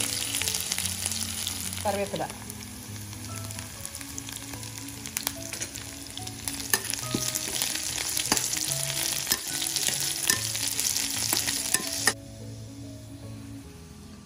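Sliced shallots, chillies and curry leaves sizzling in hot coconut oil in a steel pan, the tempering for a Kerala fish curry, with a metal spoon stirring and clicking against the pan. The sizzle cuts off suddenly about twelve seconds in.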